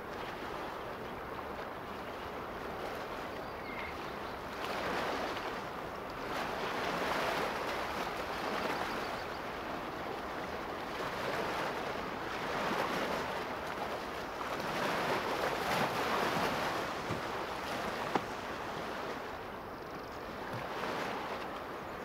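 Small lake waves lapping against the shore, the wash swelling and easing every couple of seconds.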